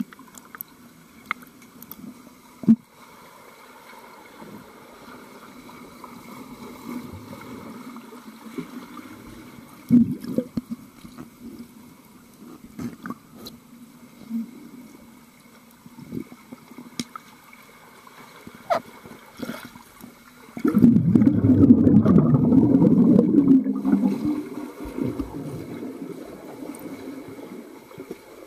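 Swimming pool heard from under the water: a muffled wash with scattered knocks, then about 21 seconds in a loud churning rush of water and bubbles from a swimmer stroking and kicking close by, fading over a few seconds.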